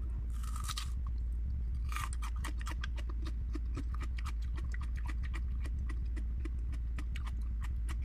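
Close-up chewing of crunchy raw onion and garlic: two louder bites near the start and at about two seconds, then a run of quick crisp crunches, over a steady low electrical hum.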